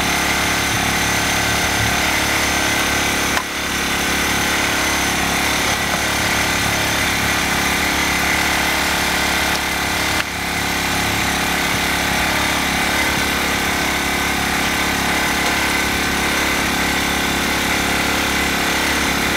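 Ryobi RYi1000 inverter generator's engine running steadily, with two brief dips in level, one a few seconds in and one about halfway through.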